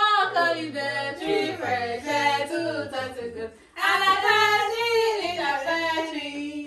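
A woman singing a melody in two phrases, with a brief pause about three and a half seconds in.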